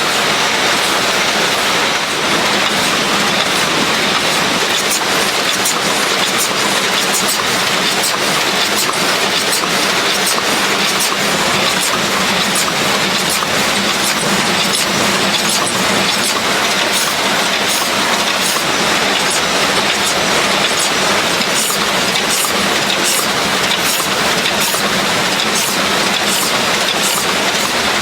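Factory production machinery for car air-conditioner filters running: a steady, loud mechanical din with a regular clicking that becomes clearer in the second half.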